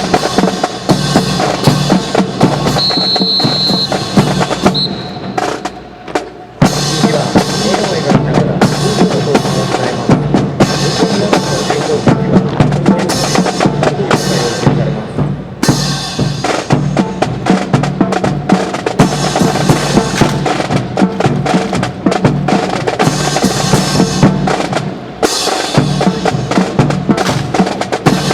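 Marching drums, snare and bass drum, beating a busy cadence with rolls. About three seconds in there is a steady high whistle note lasting under two seconds, followed by a brief drop-off before the drumming comes back sharply.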